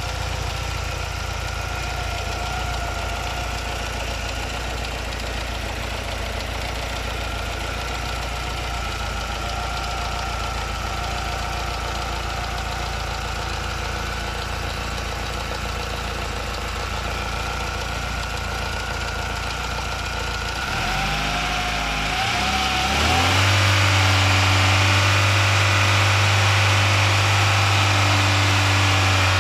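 Alfa Romeo 75 1.8 i.e. four-cylinder engine idling steadily with a grinding noise. About two-thirds of the way through it is revved up and held at a steady higher speed, louder.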